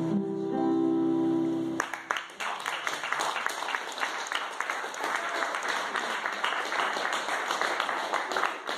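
An acoustic guitar's closing chord rings out and stops about two seconds in. Audience applause follows for the rest of the time.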